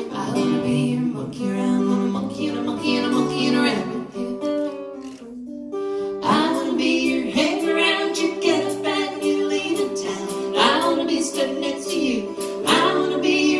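Folk duo playing a song: a strummed acoustic guitar with a sung melody over it, briefly dropping back about five seconds in.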